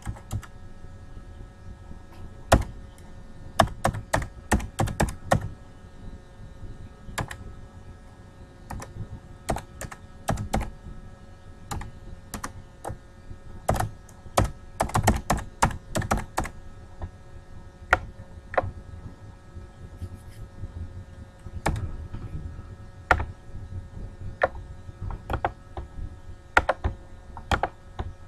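Computer keyboard typing: key presses in irregular quick runs with pauses between, over a faint steady hum.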